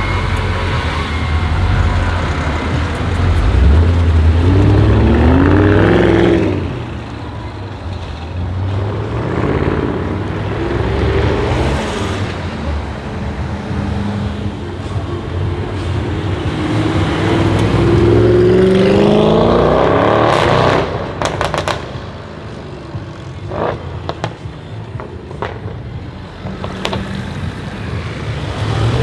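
Audi RS6 C7's twin-turbo V8 through a full non-resonated Milltek exhaust, accelerating hard twice with a rising engine note. After the second pull, a quick cluster of sharp exhaust crackles comes about two-thirds of the way in, with a few more pops after it.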